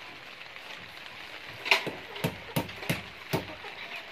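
Hammer driving a nail into a brick wall: about five blows in quick succession starting about halfway through, over a steady hiss of falling rain.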